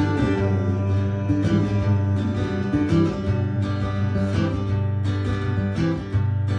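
Acoustic guitar strummed in a steady rhythm with low bass notes under the chords: the instrumental break of a folk song, with no voice.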